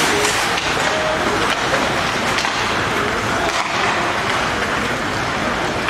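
Ice hockey game sound in an arena: a steady rush of skates on the ice and crowd noise, broken by a few sharp clacks of sticks and puck.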